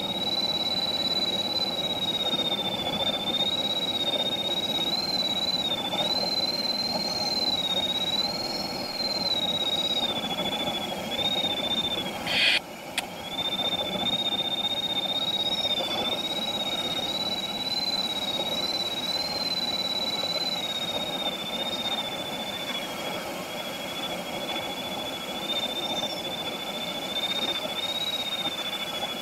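Steady rush of airflow inside a glider cockpit in flight, with a thin high-pitched whistle that slowly wavers up and down in pitch throughout. About halfway through a brief sharp knock interrupts it.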